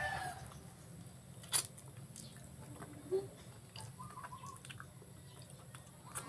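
Close-up chewing and biting of cooked eel, with two sharp clicks about a second and a half and three seconds in.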